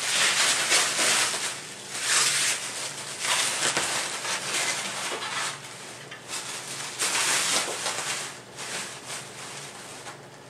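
Plastic packaging wrap rustling and crinkling in repeated bursts as it is pulled off a bicycle wheel.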